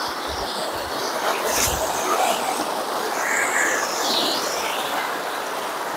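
Steady rushing of a river stream, with a high gliding call about three seconds in.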